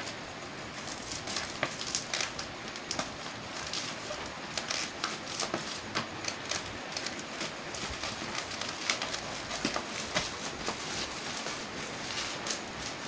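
Plastic bubble-wrap packaging crinkling and crackling as it is pulled and peeled off a box by hand, in irregular clicks and rustles.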